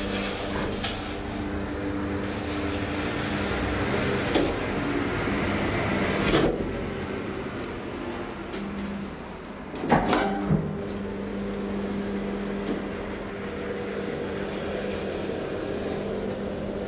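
A hydraulic elevator runs with a steady multi-tone hum as the car travels. The hum fades about six seconds in, with a knock as the car stops and the doors open. Around ten seconds in the doors close with a few sharp thumps, and the steady hum starts again.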